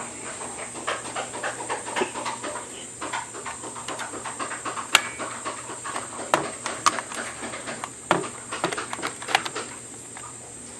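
Irregular plastic clicks, knocks and rattles from handling a cordless stick vacuum's parts, with the motor off.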